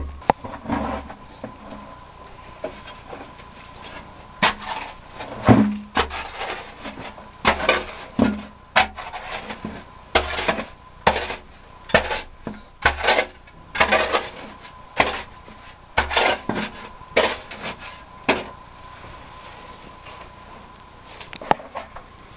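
A metal hand digging tool striking and scraping stony, diamond-bearing gravel at the bottom of a narrow hand-dug mining pit: sharp knocks about once a second, uneven in strength, stopping a few seconds before the end.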